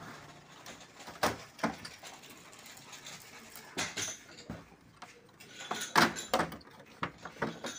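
Plastic panels and guides of a Canon imageCLASS MF244DW laser printer clicking and knocking irregularly as they are handled and pried during disassembly. The knocks come in clusters, the loudest about six seconds in.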